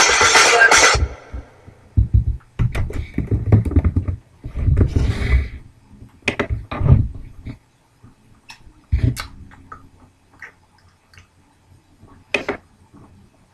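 A pop song that cuts off about a second in, followed by irregular low thumps and sharp clicks with stretches of quiet between them.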